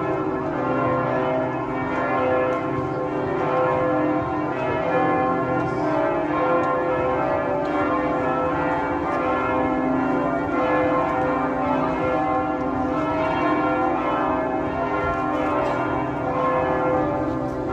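Several church bells ringing together in a continuous, overlapping peal, strike after strike with the tones ringing on into each other.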